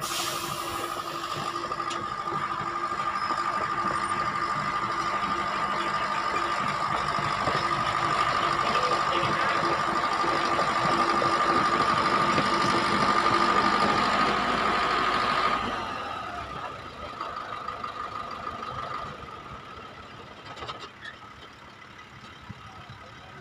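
Dump truck's diesel engine running raised to drive the tipper hydraulics as the loaded bed lifts, with a steady high whine over the engine note. About two-thirds of the way through the whine and the engine drop away sharply to a quieter running.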